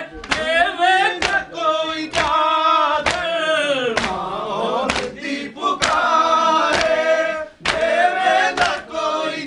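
Men chanting a Punjabi noha (Shia lament) together, a lead reciter singing from a booklet with the group's voices around him. Under the singing, hands strike chests in matam about once a second.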